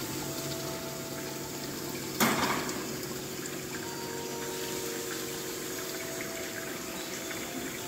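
Water running steadily in a small rock-lined turtle pond, with a faint steady hum under it. One short, louder noise stands out about two seconds in.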